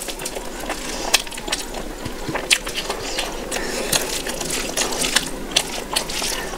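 A hand squishing and mixing rice with wet curry gravy on a plate, giving irregular sticky, wet clicks, along with close-up chewing.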